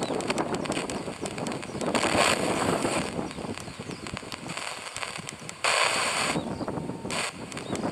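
FM radio static from a Grundig G6 Aviator's speaker as it is tuned step by step up the FM band between stations: a hiss that swells and drops abruptly, with frequent clicks, and jumps louder about two-thirds of the way in.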